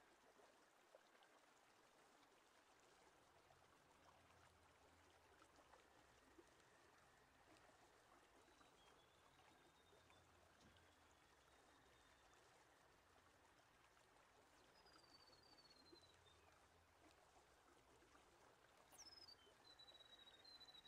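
Near silence: a faint steady hiss, with a few faint high whistled notes in the second half.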